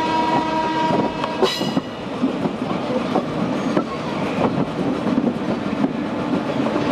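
Passenger coach of an electric-hauled express rolling over station-yard points and rail joints, heard from on board: a steady rumble with irregular wheel clicks and clatter. A multi-tone train horn holds until about one and a half seconds in, then stops.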